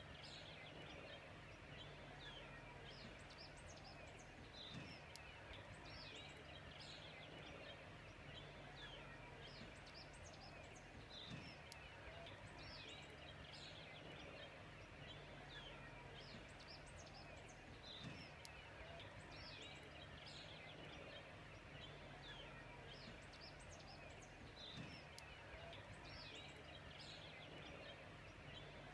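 Faint outdoor ambience: many small birds chirping in short, scattered calls over a steady low hum.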